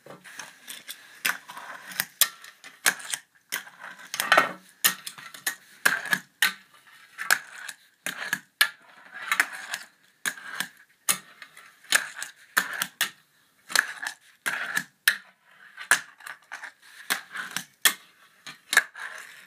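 Tech Deck fingerboard clacking on a wooden table and a toy bench as it is flipped, landed and ground. Irregular sharp clicks and taps come every fraction of a second, with a few short scrapes among them.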